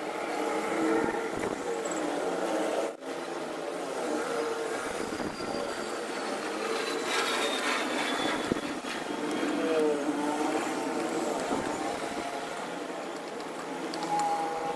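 Steady hum of motor vehicle engines, with a wavering pitch.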